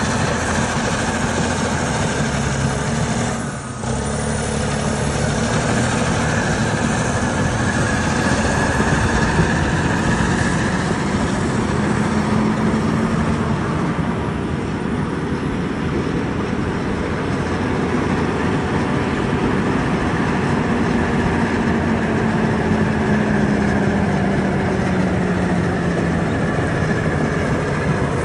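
Cat D6T LGP crawler dozer's diesel engine running as the machine tracks across the field toward the listener. The engine note rises and sags a few times, and there is a brief dip in level about three and a half seconds in.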